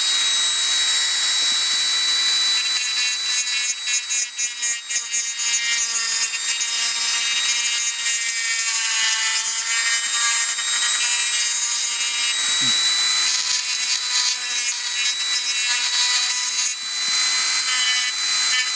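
Small high-speed rotary tool grinding away the plastic of a die-cast toy car's interior: a steady high whine over a gritty rasp, dipping briefly several times about four seconds in as the bit is pressed into the plastic.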